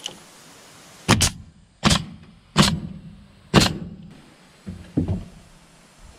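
DeWalt pneumatic coil nailer firing nails into a wooden trim strip: five sharp shots in about two and a half seconds, the first two close together, then a fainter knock near the end.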